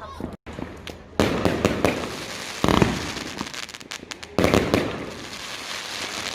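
Fireworks going off: three loud bangs, about a second in, near the middle and again past four seconds, each followed by a dense spell of crackling.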